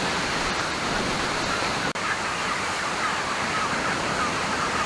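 Heavy rain pouring down in a strong wind, a steady, loud rushing.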